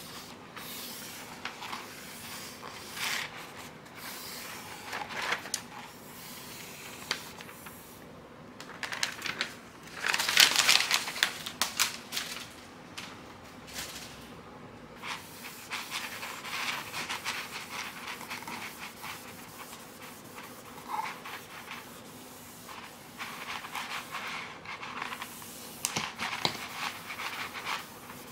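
Rustling and crinkling of a self-adhesive vinyl sheet being handled: its paper backing is peeled away and the film smoothed down, with the loudest crinkling about ten seconds in. Near the end a cloth rubs over the vinyl surface.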